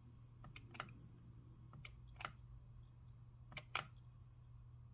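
Faint, scattered clicks from a laptop as a web page is scrolled, about five in all with two close together near the end, over a low steady hum.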